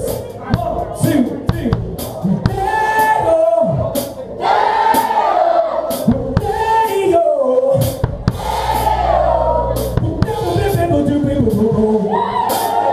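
Live rock band playing, with sung vocals, electric guitar and drum-kit hits.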